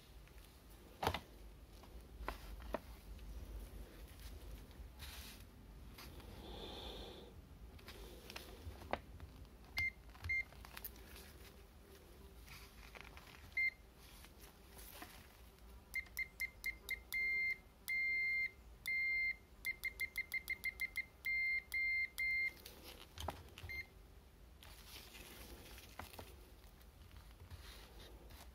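Aneng AL01 digital multimeter's buzzer beeping at one high pitch, as on a continuity test: a few single beeps, then for about seven seconds a quick run of short and longer beeps. Faint clicks of the probes being handled come in between.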